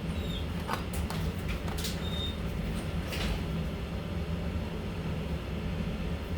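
Steady low mechanical hum, like a fan or furnace running, with a few light clicks and knocks scattered through it and one short high tone about two seconds in.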